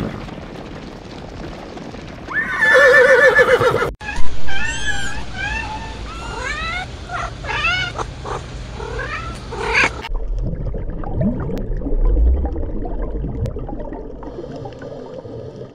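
A horse whinnies with a wavering call, then a young kitten mews over and over in short, high, rising-and-falling cries. Near the end the mewing gives way to a low underwater rumble.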